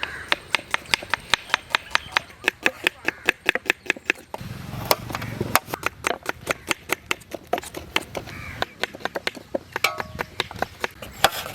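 Knife chopping on a wooden board, rapid regular strokes about four or five a second, with a brief low rumble about four seconds in.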